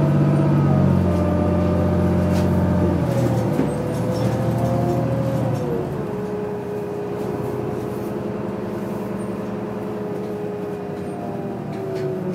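City transit bus in motion, heard from inside: engine and drivetrain running with a steady low hum and a whine that drops in pitch about five to six seconds in.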